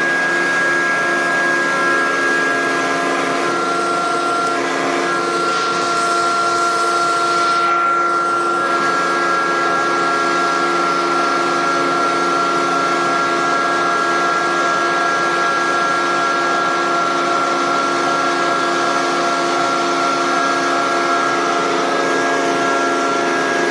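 Roadheader's electric motor and hydraulic pump running with a steady whine of several tones over a hiss, as its cutting boom moves. A brief rushing hiss passes about six to eight seconds in.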